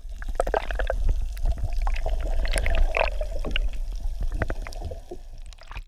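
Underwater sound picked up by a camera held beneath the surface: a steady low rumble of moving water with many irregular bubbly clicks and pops.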